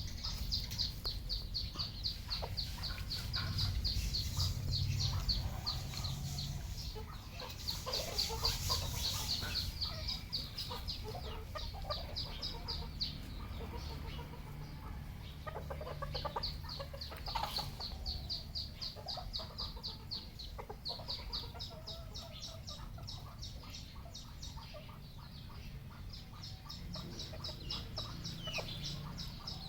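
Red junglefowl clucking on and off, with a fast, high-pitched chirping that repeats many times a second and starts and stops throughout.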